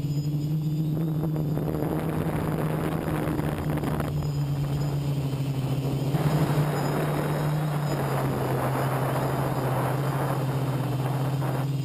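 Quadcopter's brushless electric motors and propellers humming steadily, with a rushing wind noise over the onboard microphone that swells from about a second in and drops away near the end.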